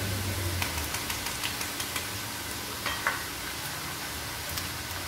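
Sliced tempeh deep-frying in hot oil in a wok: a steady sizzle full of small crackling pops, with a few louder clicks.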